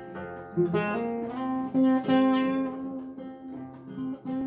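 Two acoustic guitars playing a song's instrumental introduction, chords strummed and picked and left to ring.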